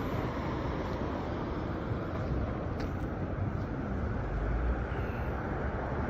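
Street traffic at an intersection: cars passing and turning, a steady rush of tyres and engines, with a low rumble swelling a little after four seconds in.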